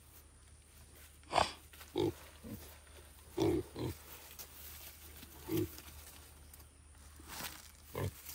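Two young pigs grunting as they sniff around onion tops: about eight short grunts spread through, the loudest about a second and a half in.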